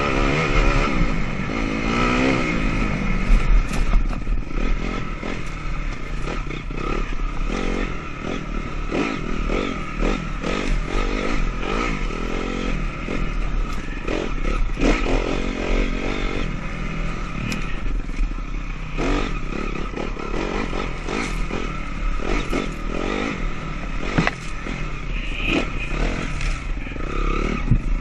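Honda CRF250R's four-stroke single-cylinder engine revving up and down again and again as the dirt bike is ridden over trail, with frequent clattering knocks from the bike over rough ground.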